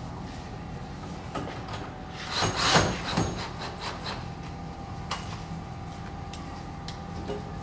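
Rubbing and scraping of wood and hardware being handled: about a second of scraping a little over two seconds in, then a few light clicks and knocks.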